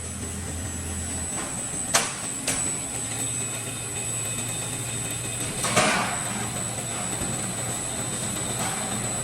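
Roll-forming machine for C, Z, U and M steel profiles running with a steady hum and a high thin whine, with a sharp metallic knock about two seconds in, a lighter one just after, and a louder knock near six seconds.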